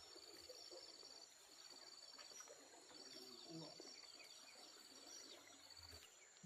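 Faint outdoor insect chorus: one steady high-pitched drone, plus a pulsing trill that comes in bouts of about a second with short gaps.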